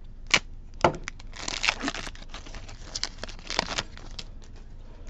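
Foil wrapper of a Pokémon trading card booster pack being torn open and crinkled by hand: a string of sharp crackles, densest about one and a half seconds in.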